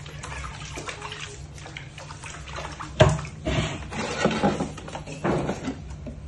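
Water sloshing and splashing in a plastic baby tub as baby monkeys are bathed, with one sharp knock about halfway through and busier splashing after it.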